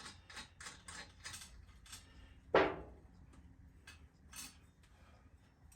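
Fuel filler cap being screwed down tight on a Coleman dual fuel lantern's tank: a run of quick light clicks, then one louder sharp scrape about two and a half seconds in, followed by a few scattered faint clicks.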